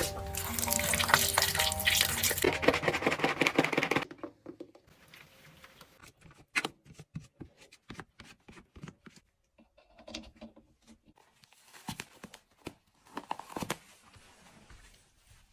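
Water running from a bathroom tap and splashing in the sink basin, stopping suddenly about four seconds in. After that come faint scattered rubbing and tapping sounds as a sponge scrubs the ceramic basin.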